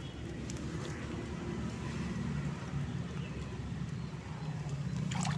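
Steady low engine hum of motor traffic, growing a little louder from about two seconds in, with a short high chirp near the end.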